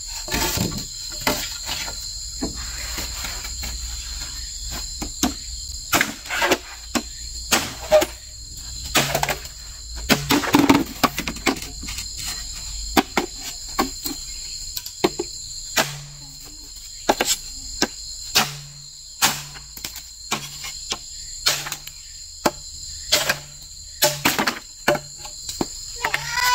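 Machete striking green bamboo poles: sharp, irregular knocks, often several in quick succession, over a steady high drone of insects.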